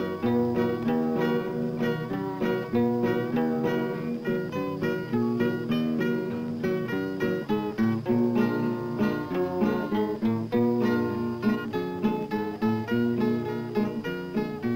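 Acoustic guitar music: a steady run of quickly plucked notes.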